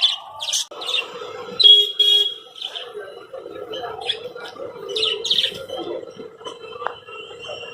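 Caged parakeets chirping in short, high calls, some in quick runs and one briefly held, over a steady background hum that sets in just under a second in.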